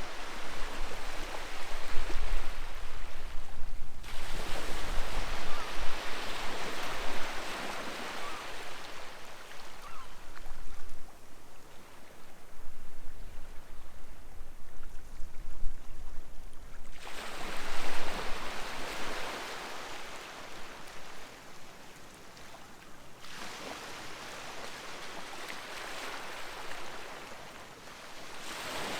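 Sea waves breaking and washing up the shore with a steady rushing hiss. A fresh surge swells in about every twelve seconds, around four seconds in, again past the middle and near the end, then drains away between.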